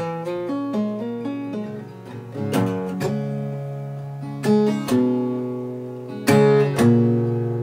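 Acoustic guitar played fingerstyle: a quick run of single picked notes, then several chords struck and left to ring.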